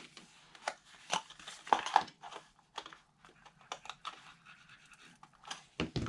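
Scattered rustles, light taps and clicks of cardstock being handled and pressed down on a cutting mat. A plastic glue bottle is picked up and squeezed onto the paper flaps.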